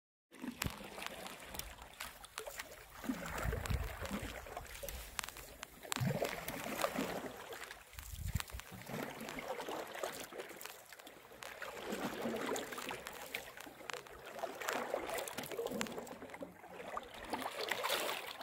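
Canoe paddle strokes in calm loch water from an open canoe: soft splashing and gurgling that swells about every three seconds.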